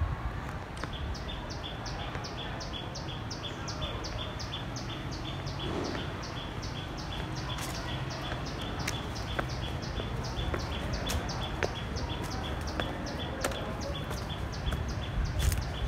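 Rapid, evenly repeated high chirps from a small animal, about four a second, each note sliding down in pitch, keeping up without a break, over a steady low outdoor rumble.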